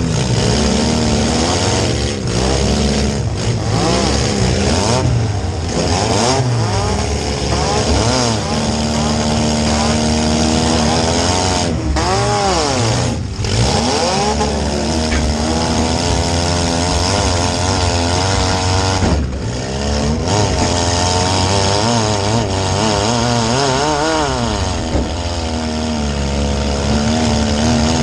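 Demolition derby car's engine, heard from inside the car, revving hard and rising and falling in pitch over and over as the car is driven, with brief dips in between.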